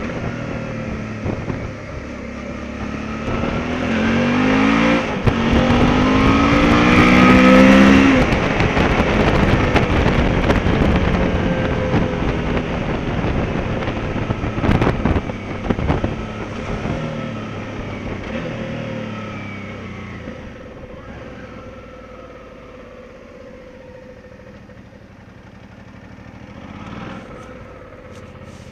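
Motorcycle engine accelerating hard, its pitch rising twice with a gear change about five seconds in, under a rushing wind noise on the microphone. After the peak the engine eases off and settles to a lower, steady run as the bike slows.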